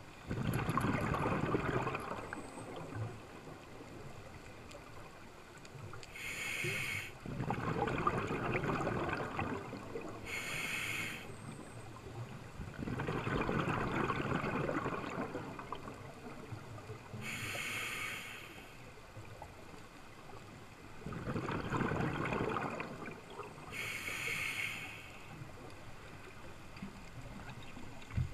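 Scuba diver breathing through a regulator: four long bubbling exhalations alternating with shorter hissing inhalations, about one breath every six to seven seconds.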